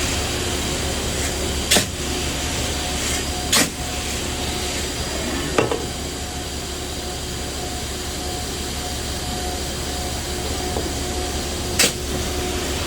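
Machinery running with a steady hum and low drone, with a few short sharp clicks or knocks, about two seconds apart.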